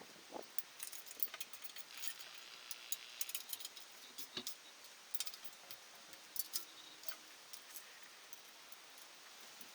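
Irregular light metallic clinks and ticks of small metal parts and tools being handled, thickest in the first half and thinning out toward the end.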